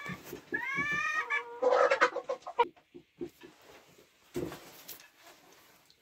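Two drawn-out, slightly rising animal calls, then a harsher squawk, with scattered knocks and a brief rustle about four and a half seconds in.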